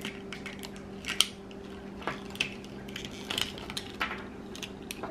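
Small scattered clicks and crackles of a Hatchimals CollEGGtibles toy egg's shell being cracked and picked apart by hand, with a low steady hum underneath.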